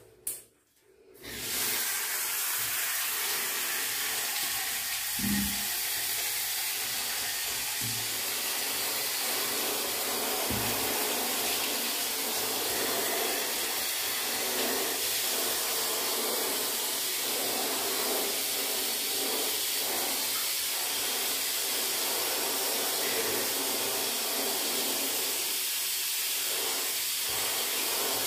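Shower water spraying onto a husky's coat and the tiled shower floor: a steady hiss that starts about a second and a half in.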